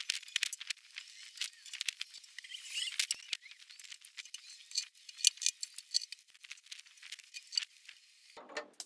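Light, irregular clicks and taps of hardwood trim slats being handled and set against a glossy black table base, with a few faint squeaks.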